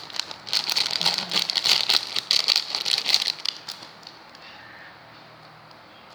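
A plastic packaging bag crinkling as it is handled: a dense run of crackles that stops about four seconds in.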